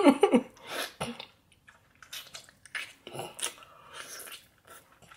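Close-miked chewing and wet mouth sounds of a person eating a stewed potato: irregular soft smacks and squelches with small clicks.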